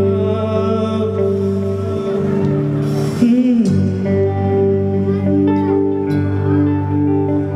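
Live band playing long sustained chords over electric bass, with electric guitar and keyboard; the bass and chords change every second or two, and a melody line glides in pitch about three seconds in.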